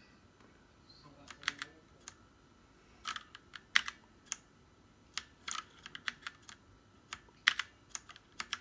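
Keys being pressed on a mechanical keyboard with brown switches: scattered sharp clicks, singly and in small groups, a second or so apart.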